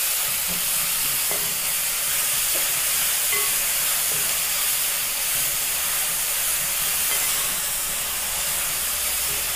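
Sliced onions with garlic, ginger, green chillies and curry leaves sizzling steadily in hot coconut oil in a pan, with a few faint small pops: the onions are salted and sautéing until soft.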